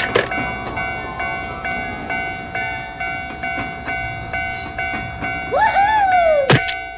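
Animated-train sound effects over background music with sustained notes. A regular clatter comes about twice a second. Near the end a pitched, whistle-like tone rises briefly, then slides down and is cut off by a sharp crack.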